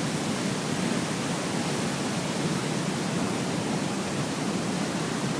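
Large waterfall rushing: a steady, even wash of falling water.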